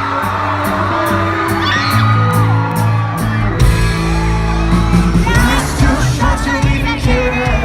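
Live band music with singing, heard from within a concert crowd, with whoops from the audience. A heavy bass comes in about three and a half seconds in.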